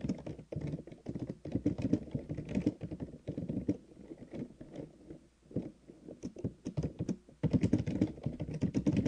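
Typing on a computer keyboard: rapid runs of keystroke clicks with short pauses between them.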